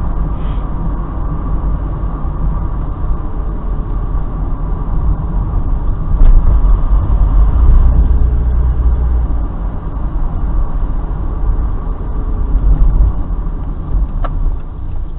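Mazda MX-5 Roadster driving slowly, heard from inside the cabin: a steady low engine and road rumble. Two faint ticks come about six seconds in and near the end.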